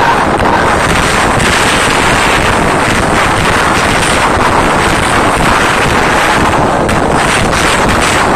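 Concert crowd screaming, overloading a phone's microphone into a loud, steady, distorted roar.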